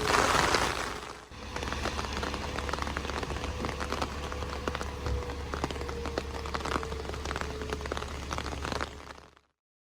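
Rain falling, a steady patter with many separate sharp drips over a low steady rumble. A louder rushing noise fills the first second before a cut, and the rain fades out near the end.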